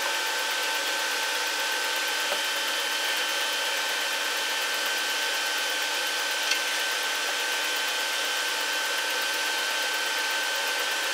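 Steady whirring drone of running machinery with a constant high whine, like cooling fans running. Two faint clicks, one about two seconds in and one past the middle, as a circuit board and paper sheet are handled in a metal chassis.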